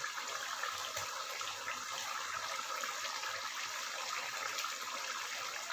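Pumpkin curry simmering in milk in a pan, a steady bubbling sizzle.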